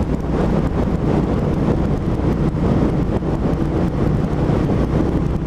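Suzuki SV650S V-twin engine running steadily while riding, with wind rushing over the helmet microphone.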